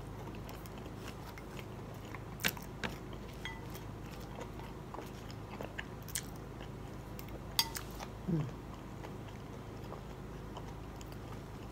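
A person eating fried food with a plastic fork: quiet chewing and biting, with a few short sharp clicks of the fork against the plate, over a steady low room hum.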